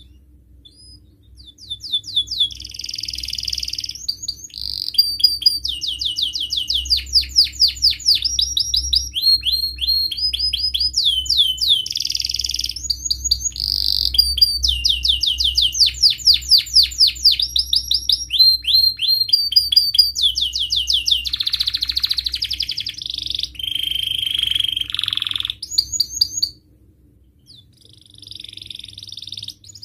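Domestic canary singing a long song of rapid trills and rolls with short breaks between phrases. It breaks off about 26 seconds in, and a few softer phrases follow near the end.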